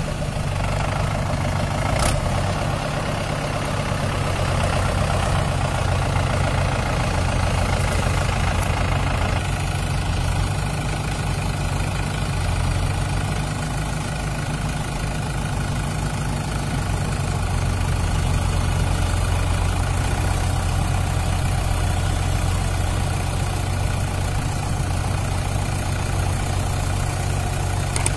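Mahindra 575 DI tractor's four-cylinder diesel engine running steadily at low speed. The sound grows duller about nine seconds in, losing some of its higher clatter.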